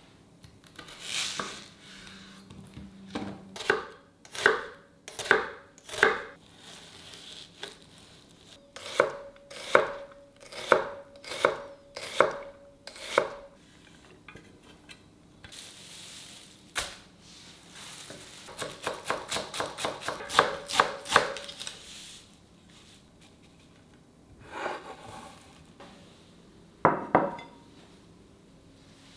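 Knife chopping food on a cutting board: separate strokes about one a second, then a quick run of rapid chops about two-thirds of the way through.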